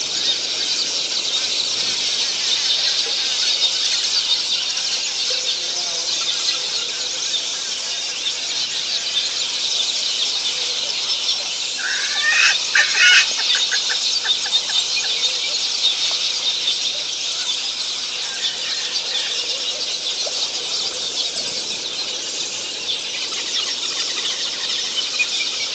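Steady, dense high-pitched chorus of wild creatures, with one louder bird call about twelve seconds in: a couple of sliding notes followed by a quick run of pulses.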